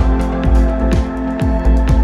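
Electronic background music with a steady kick-drum beat, about two beats a second, over sustained bass notes.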